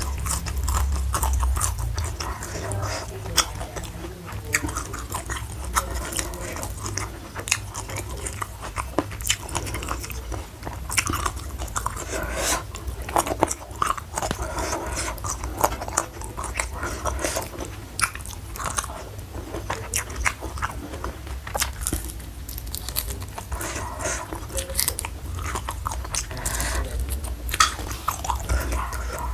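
Close-miked chewing and biting of crisp food, with many sharp crunches, over a low steady hum.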